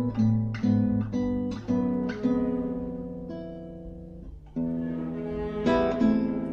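Classical guitar played: several plucked notes and chords in the first two seconds, then a chord left to ring and fade. The sound breaks off briefly about four and a half seconds in, and two more chords follow.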